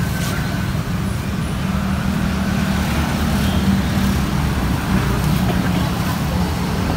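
Steady street traffic noise, with motorbikes passing close by on the road.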